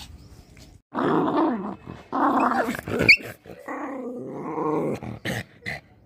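Dogs growling in rough play, in several long growls starting about a second in, with a brief sharp peak near the middle.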